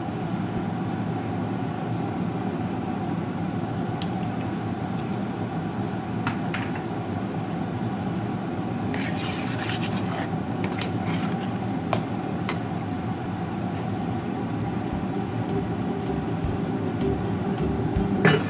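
A metal spoon and hands working a thick pâté mixture in a stainless steel mixing bowl, with scattered light clinks of metal on the bowl, most of them in the middle of the stretch, over a steady low hum.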